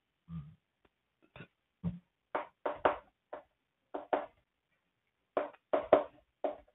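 Writing on a board: about fifteen short scratching strokes and taps in quick clusters, as an equation is written out.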